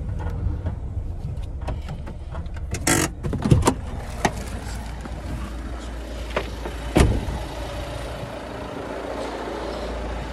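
A delivery van's cab door and fittings clicking and knocking as the driver climbs out, with sharp knocks about three and a half and seven seconds in, over a steady low rumble.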